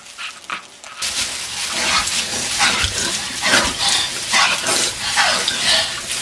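A tap running into a sink, turned on about a second in, with a girl's shrieks and laughter over the water.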